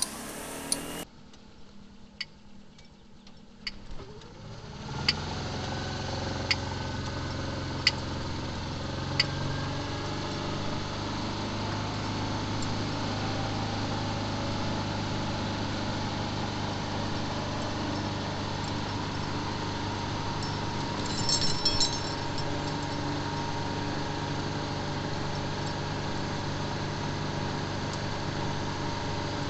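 Motorcycle engine running steadily while under way, a low drone that comes in about five seconds in after a quieter start. A regular ticking runs through the first several seconds, and there is a brief metallic jingle a little past the middle.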